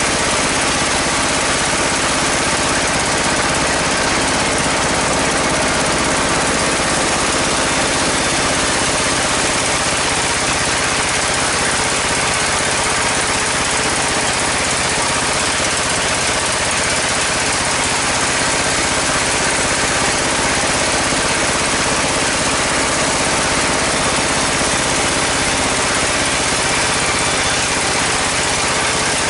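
Band sawmill with its 24 hp drive engine running steadily, a loud, dense, unbroken machine noise.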